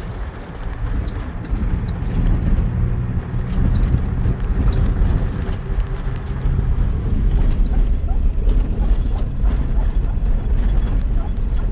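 A vehicle running: a steady low rumble with scattered knocks and rattles.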